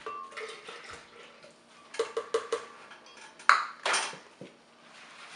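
Kitchenware clinking and clattering as a cup of milk is measured into a blender jar: a quick run of four light clinks about two seconds in, then two louder, noisier clatters a little later.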